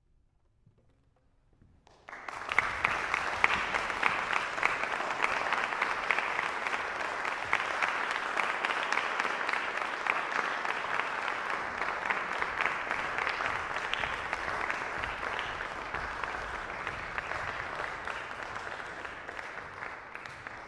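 Near silence for about two seconds, then an audience breaks into applause all at once. The clapping holds steady and tapers off near the end.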